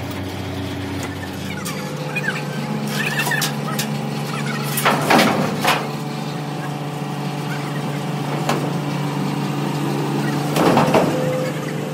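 An engine running at a steady speed, its pitch stepping up about two seconds in. Three short loud knocks come through it, two close together near the middle and one near the end.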